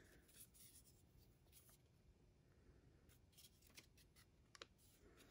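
Near silence, with faint rustling of paper and a glue stick rubbing on a newspaper cut-out, and a couple of soft clicks in the second half.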